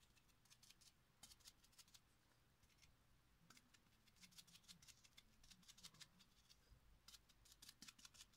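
Faint, irregular clusters of short scratchy ticks from a round brush dabbing paint onto the gritty, textured surface of a painted glass vase.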